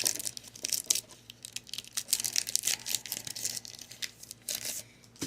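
Foil Pokémon booster-pack wrapper crinkling and being torn open, in irregular crackly bursts that stop just before the end.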